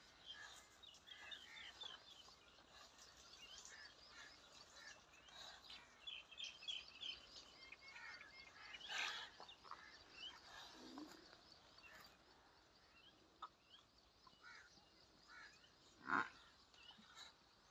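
Faint birds chirping, short high calls repeated in quick series, over quiet outdoor background; a single short louder sound breaks in near the end.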